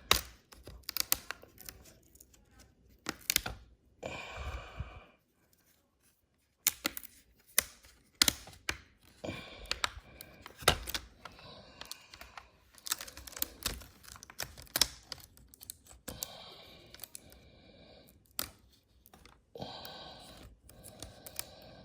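Plastic screen bezel of a Dell Latitude E5270 laptop being pried off by hand: many sharp clicks and snaps as its edges and clips come free, with a few short stretches of scraping and adhesive tape peeling away.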